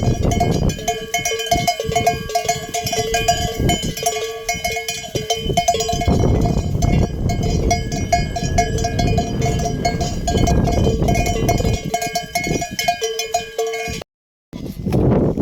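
Many neck bells on a moving flock of sheep and goats clanking and ringing together in a continuous jangle, with rustling and clatter underneath. The sound cuts out briefly near the end, then resumes.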